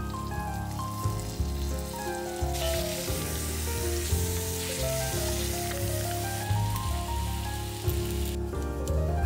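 Plant-based chicken strips sizzling in oil in a Dutch oven as they are stirred with a wooden spatula. The sizzle starts about two and a half seconds in and stops near the end. Soft background music with a steady beat plays throughout.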